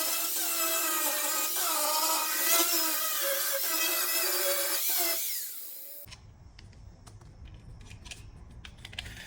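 Angle grinder fitted with a flap disc running at full speed with a steady high whine. It is switched off about five seconds in and winds down with a falling pitch, followed by faint clicks and handling noise.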